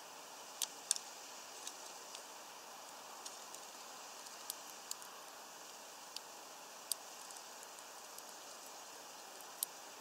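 Scattered sharp clicks, about eight in ten seconds, of a male Eurasian bullfinch cracking and husking sunflower seeds, over a steady faint hiss.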